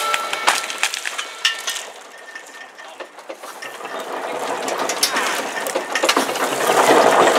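Roots and wood cracking and snapping, and dry branches crackling, as a tree stump is pulled out of an earth bank by a steam traction engine. Dense sharp cracks at first, then a louder rustling and scraping of branches builds over the last few seconds.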